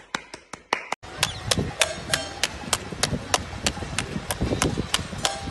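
Steady rhythmic hand clapping, about three claps a second. An edit about a second in switches to another stretch of the same clapping over a busier background.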